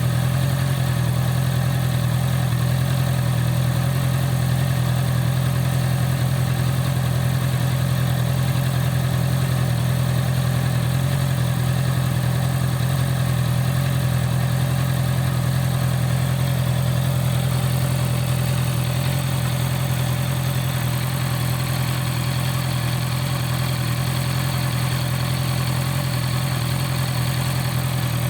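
Honda CB650R's inline-four engine idling steadily, with a noise from the engine that the owner takes to be abnormal.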